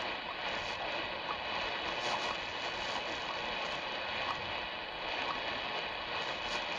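Shortwave static and hiss from an Eton Grundig Edition Field BT receiver tuned to 5 MHz, with faint ticks about once a second: the seconds pulses of the WWVH time signal, heard weakly through the noise.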